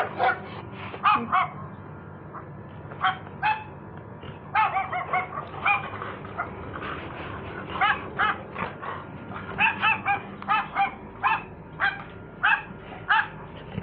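Recorded dog barking played loudly through a phone's speaker: repeated short, thin-sounding barks in irregular groups, with a pause of about a second and a half near the start.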